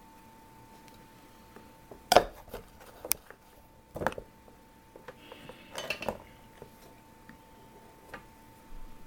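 Metal hand tools clinking and tapping on a soldering workbench. A sharp clink comes about two seconds in, then scattered clicks and clinks follow, with a cluster around six seconds. A faint steady whine runs underneath.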